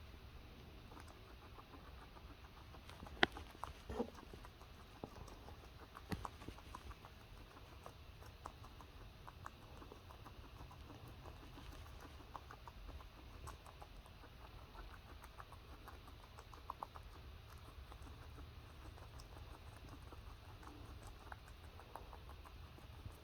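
Lettuce being chewed in quick, crisp little crunches and clicks, with a few sharper crunches about three, four and six seconds in.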